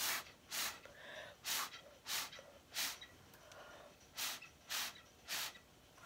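Breath blown through a drinking straw in eight short, sharp puffs, with softer breathing between them, pushing wet pour paint across a canvas.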